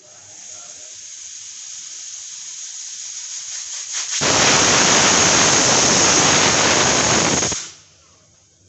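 Aluminium pressure cooker on a gas burner letting off steam: a hiss that builds for about four seconds, then one loud, shrill whistle blast of about three seconds as the weight valve lifts, cutting off suddenly. It is a cooker whistle, the sign that full pressure has been reached inside.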